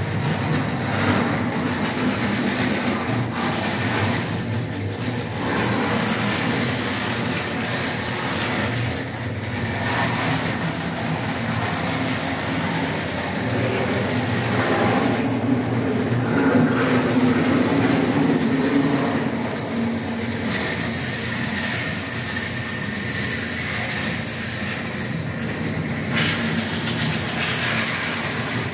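Miniature train on a model railway layout running steadily: a continuous mechanical hum with a thin, steady high-pitched whine over it.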